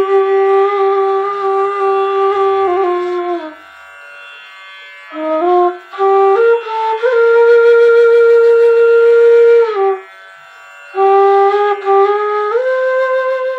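Slow solo flute melody of long held notes that step up or down a little, in three phrases with short pauses between them.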